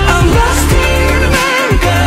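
Background pop music with a beat and deep bass notes that slide downward.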